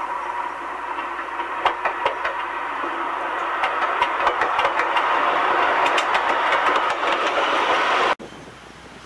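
A train running on its rails: a steady rush of wheel and rail noise with scattered clicks, growing louder, then cut off suddenly about eight seconds in.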